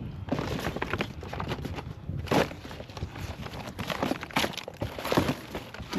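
Hands rummaging through a pile of discarded household items: irregular rustling, crinkling and light clattering as things are moved about, with a sharper knock about two seconds in.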